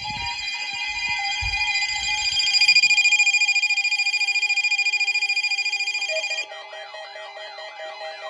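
Electronic alert tone from a weather radio receiver, set off by a Required Weekly Test: a shrill steady tone that pulses rapidly from about two and a half seconds in, then drops about six seconds in to a fainter pattern of lower beeping notes. A few low thumps sound in the first few seconds.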